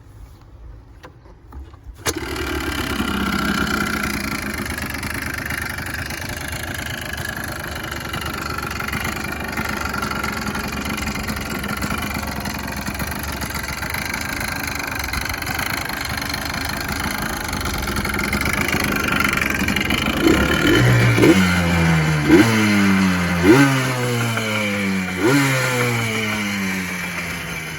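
Yamaha Blaster 200's single-cylinder two-stroke engine starts suddenly about two seconds in and runs steadily. Near the end it is revved in several quick blips, each rising in pitch and falling back.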